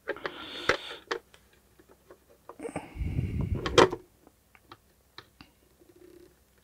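Handling noise from hands working at a soldering bench with wires, a soldering iron and tools: scattered small clicks and taps, with a louder low bump and rustle from about three to four seconds in.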